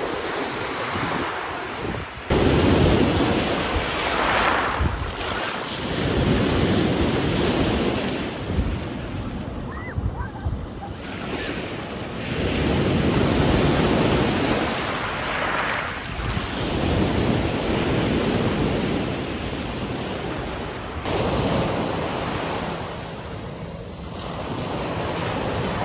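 Small waves breaking and washing up a pebble shore, surging and falling back every few seconds, with wind on the microphone.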